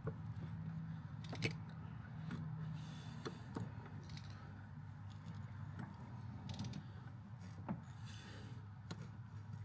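Faint, scattered mechanical clicks and ticks, a few seconds apart, as a BMW N57 diesel is turned over slowly by hand to feed a new timing chain in while the old one feeds out.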